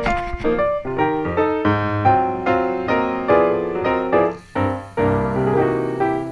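Background piano music: a run of struck notes and chords.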